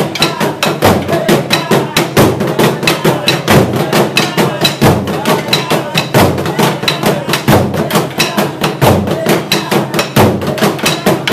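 Burundian ingoma drums, tall wooden drums with hide heads, beaten with wooden sticks by an ensemble in a fast, continuous, driving rhythm of sharp strikes.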